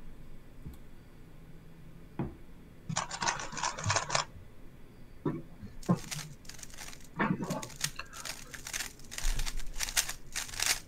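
A 3x3 speedcube being turned at speed during a solve: a few single clicks, a short burst of rapid plastic clicking and rattling about three seconds in, and a longer run of fast clicks from about six seconds on.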